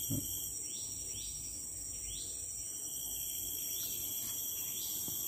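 Steady high-pitched insect chorus with short bird chirps repeating about once a second, and a brief low knock right at the start.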